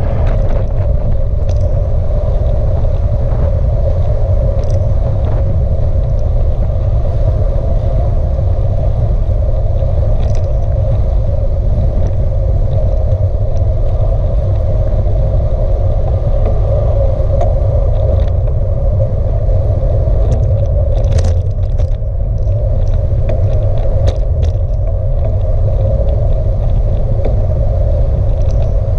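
Bicycle rolling along a tarmac lane: a steady low rumble of wind buffeting and road vibration on the microphone, with a steady hum of tyre noise above it. A few faint clicks and ticks come through, the clearest about 21 seconds in.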